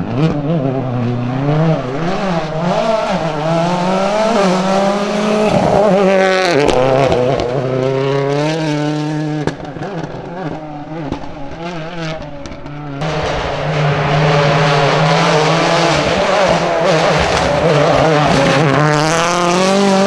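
Ford Fiesta WRC rally car's 1.6-litre turbocharged four-cylinder engine revving hard through the gears as it drives past, the pitch repeatedly climbing and dropping at each shift. The engine is quieter for a few seconds in the middle, then loud again.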